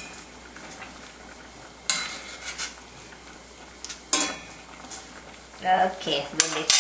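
A metal utensil stirring a pot of soup, clinking against the pot's side several times, with a quick run of clinks near the end.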